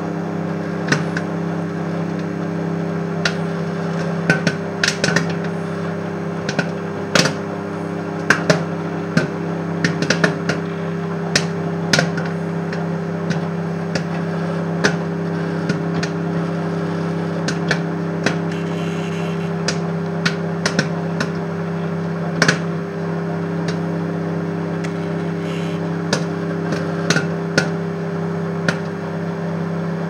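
Microwave oven running with a steady hum while popcorn kernels pop inside. The pops are sharp and irregular, coming singly or in quick clusters.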